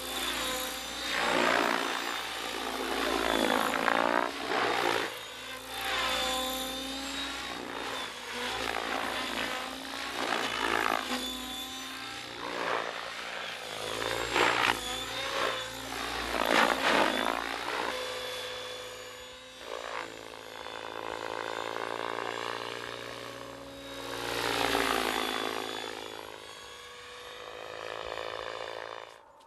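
Large Compass RC helicopter flying 3D aerobatics: its rotor and motor whine sweeps up and down in pitch in repeated surges as it passes and changes direction. The sound cuts off suddenly near the end.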